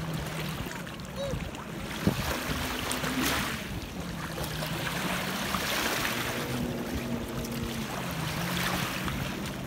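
Shallow lake water sloshing and splashing around children wading and playing with an inner tube, the wash swelling about every three seconds, with a low steady drone underneath.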